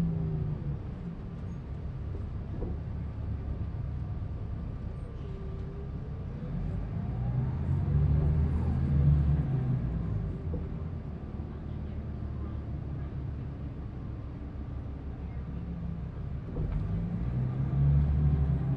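A 2005 New Flyer D40LF transit bus running: its Cummins ISL inline-six diesel and ZF Ecomat II automatic transmission, with a whine that rises and falls in pitch. The engine swells louder about seven seconds in and again near the end.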